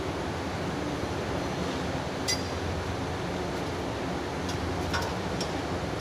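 A few sharp metallic clinks from a wrench and steel pipe fittings being handled, the loudest about two seconds in and a small cluster near the end, over a steady rush of background noise.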